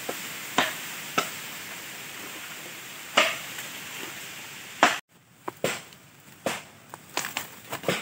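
Bolo knife chopping dry bamboo: a run of sharp, irregular chopping strikes in the second half. Before that, a steady hiss with a few isolated cracks.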